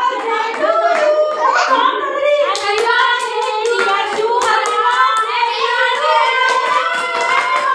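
A group of women and girls singing together while clapping their hands, with sharp claps running through the singing.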